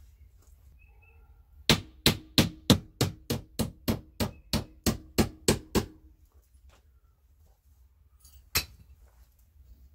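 Wooden-handled hammer driving a nail into fiber cement lap siding: a quick run of about fourteen blows, roughly three a second, with a ringing tone from the nail, then one more blow a few seconds later.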